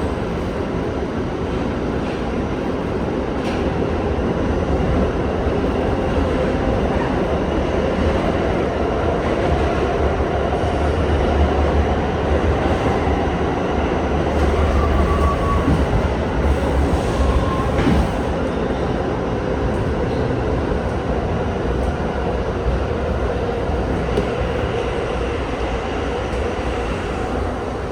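R68 subway train running along the track, heard from on board: a steady rumble of wheels and motors that grows louder a little before halfway, with a brief faint wheel squeal and a single clack past the middle.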